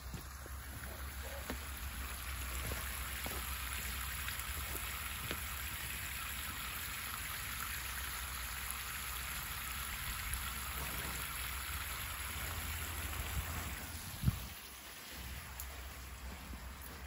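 Water gushing from an open garden hose and splashing onto wet, muddy ground: a steady splashing hiss. It stops suddenly with a single knock near the end.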